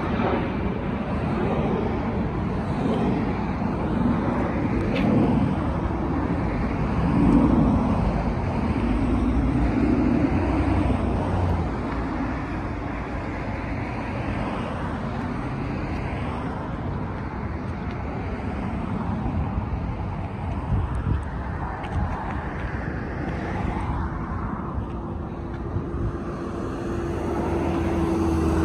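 Motor vehicle noise, a steady rumble; a steady hum comes in near the end.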